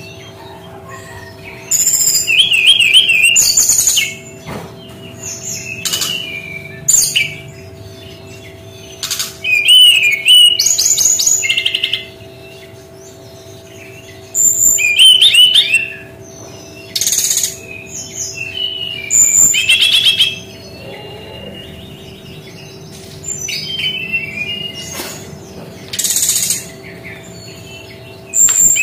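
Brown-chested jungle flycatcher singing: a run of loud, high, rapidly warbled and trilled phrases, each lasting one to two seconds, broken by short pauses, with a faint steady hum underneath.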